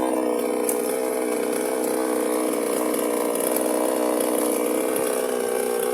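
Chainsaw engine running steadily at low revs, off the cut.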